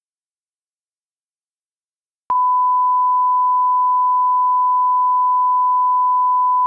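Dead silence, then about two seconds in a steady 1 kHz line-up tone switches on with a click and holds at one pitch and level: the reference test tone that goes with colour bars.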